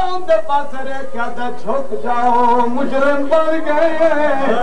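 A man's voice chanting a mournful masaib recitation in a sung melody, with several long held notes.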